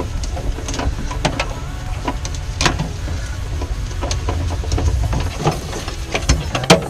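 Irregular clicks, knocks and rattles of wiring and connectors being tugged against the car's steel body as the rear wiring loom is pulled out, over a low steady rumble; the loudest knock comes near the end.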